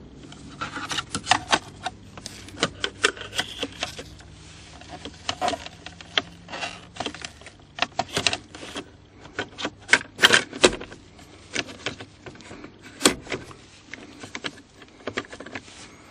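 Hard plastic shifter bezel and center console trim of a Toyota Corolla rattling, clicking and knocking as it is handled and worked back into place. A string of irregular sharp clicks, with louder knocks about ten and thirteen seconds in.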